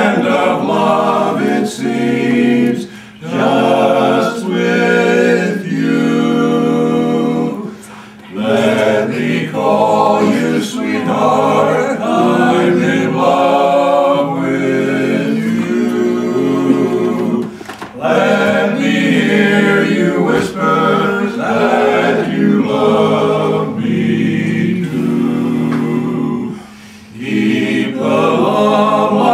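Barbershop quartet singing a cappella in close four-part harmony, held chords sung in phrases with brief pauses between them.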